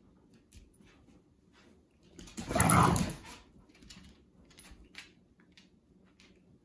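Dogs at rough play: one loud dog vocalization about two seconds in, lasting about a second, with faint clicks of claws on the tile floor around it.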